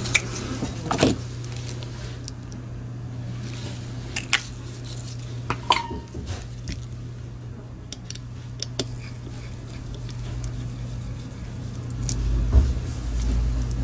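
Scattered light clicks and taps of the hard plastic parts of an opened Logitech MX Anywhere 3 mouse being handled during reassembly, one tap with a brief ring about six seconds in. A steady low hum runs underneath, and a low rumble comes in near the end.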